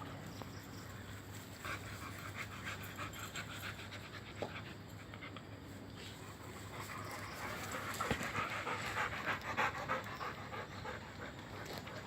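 A dog panting quickly, about four breaths a second, the panting growing louder past the middle.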